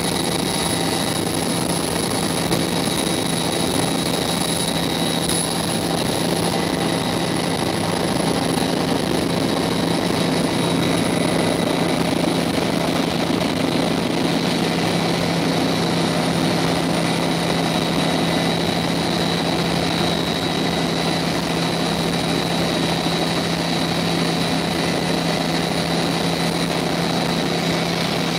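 Cabin noise of a CH-146 Griffon twin-turboshaft helicopter in steady flight: a constant high turbine whine over a low rotor and gearbox drone and rushing airflow, unchanging throughout.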